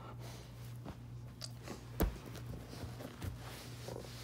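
Wolf dog gently mouthing and chewing on a person's hand: soft, scattered mouth and teeth sounds, with one sharp click about two seconds in.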